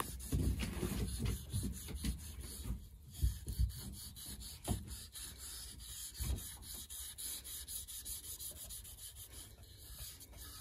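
A 600-grit wet sanding disc is rubbed by hand over the lacquer finish of a wooden bowl, lubricated with soapy water. The sound is a run of soft, uneven sanding strokes.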